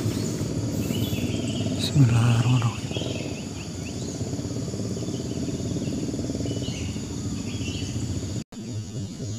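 Outdoor ambience: insects chirping in short repeated bursts over a steady low rumble, with a brief low drone about two seconds in. The sound cuts out abruptly for an instant near the end.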